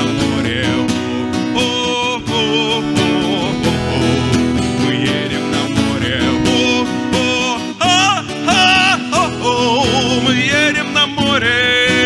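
A man singing a Russian bard song to strummed acoustic guitar. His voice rises into long held notes with vibrato about two thirds of the way in and again near the end.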